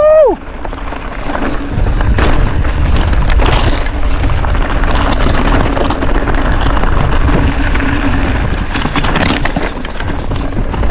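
A brief shout at the very start, then a mountain bike running fast down a dry dirt and stony trail. The tyres crunch over gravel and rocks, the bike rattles with many small knocks, and wind buffets the onboard microphone with a heavy rumble.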